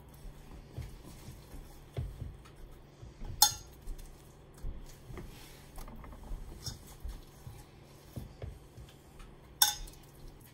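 Fingers patting and pressing soft falafel mixture into patties on a metal baking tray, giving a run of soft dull pats, with two sharp metallic clinks, about three and a half seconds in and near the end.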